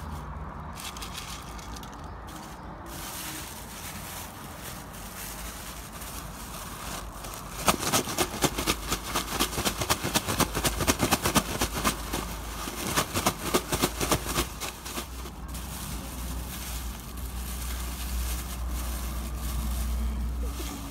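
Baked potato chips being shaken in a closed plastic bag to coat them in seasoning: a dense, rapid crinkling rattle of bag and crisp chips lasting about seven seconds, starting around a third of the way in. Quieter rustling of the bag comes before and after.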